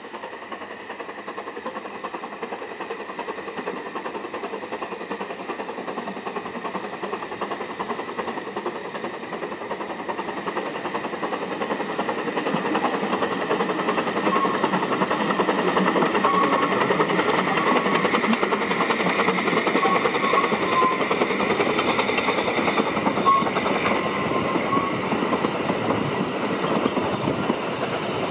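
Narrow-gauge steam locomotive working a train of coaches, its exhaust and running gear growing louder as it approaches and passes close by, with the coaches' wheels clattering over the rails.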